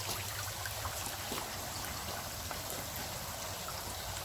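Steady trickling and splashing of water running into fish-farm vats, over a low steady hum.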